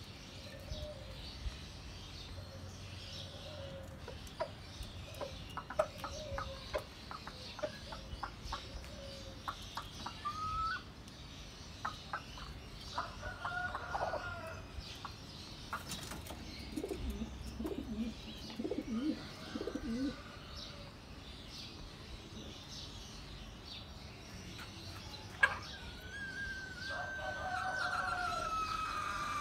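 Domestic chickens clucking and calling in short, scattered notes, with a longer call near the end that falls in pitch.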